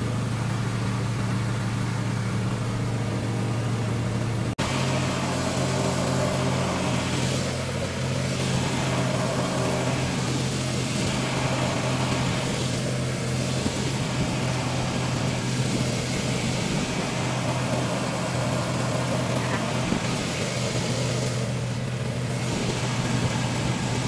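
A small boat's motor running steadily as the boat cruises, a constant low drone over a hiss of wind and water. There is a brief dropout about four and a half seconds in, after which the engine note sits slightly higher.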